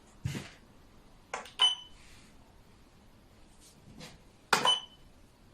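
Hard xiangqi pieces knocked down onto the board: a few sharp clacks, some with a brief high ring. The loudest come about a second and a half in and near the end, with a duller thump near the start.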